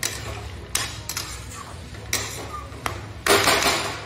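Spoon stirring a watery curry in a metal kadhai: several light knocks and scrapes against the pan, then a longer, louder scraping swish near the end.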